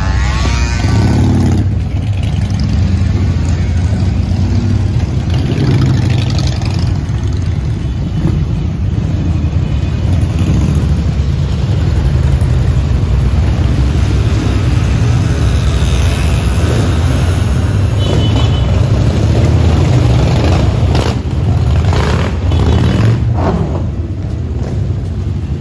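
A column of motorcycles riding slowly past one after another, engines running at low revs with a deep, steady rumble, rising in revs now and then. Harley-Davidson V-twins lead the mix, with a scooter and a Ducati among them.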